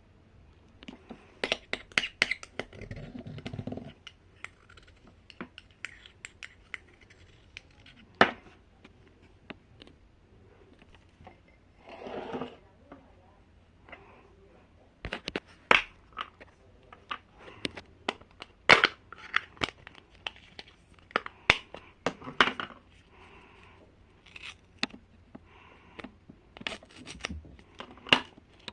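Irregular sharp clicks, taps and scratching of small objects being handled, with a few short, louder noisy bursts.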